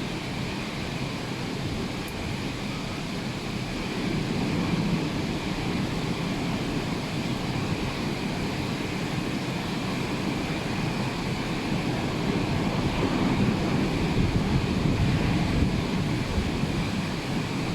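Rough sea surf: a steady rush of breaking waves that swells louder a few seconds in and again near the end, with wind rumbling on the microphone.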